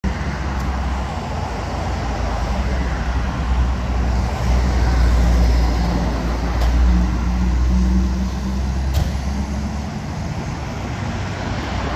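Fire engine's diesel running in the station bay, a steady low rumble that eases slightly just before the end. Three short sharp clicks sound over it.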